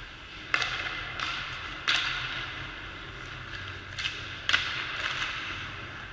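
Sharp cracks of ice hockey sticks and pucks during shooting practice, about five in a few seconds, each echoing in the arena, over a steady hum of the rink.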